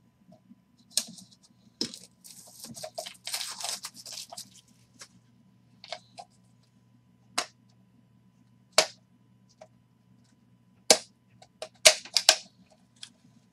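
A utility knife slicing through a box's seal and wrapping, a scratchy cutting sound lasting a couple of seconds, followed by a few sharp clicks and taps as the opened packaging is handled.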